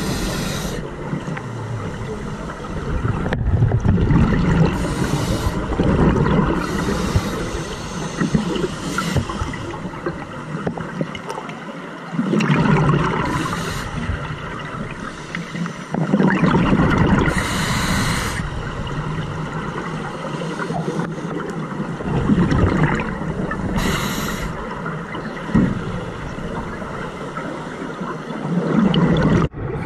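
Scuba regulator breathing underwater: exhaled bubbles gurgle and rush out in bursts every few seconds over a constant low rumble of water.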